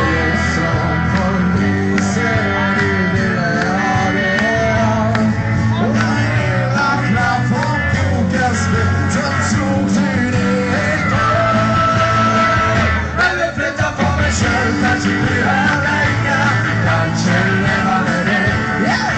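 Live band playing rock music with a lead singer, heard loud from among the audience. There is a brief dip in the music about two-thirds of the way through.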